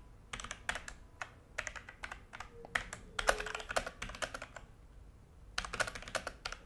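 Typing on a Logitech G413 mechanical keyboard: quick runs of key clicks in bursts, with a pause of about a second near the end before the typing resumes.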